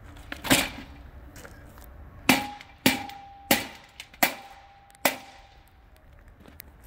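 Sledgehammer blows on steel landscape edging, driving it down to grade: about six sharp strikes at an uneven pace, with the steel ringing after the middle ones.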